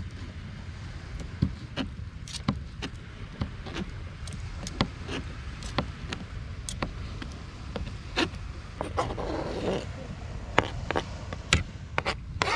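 Knife slicing cooked octopus on a chopping board: irregular sharp taps of the blade hitting the board, one or two a second, over a steady low rumble.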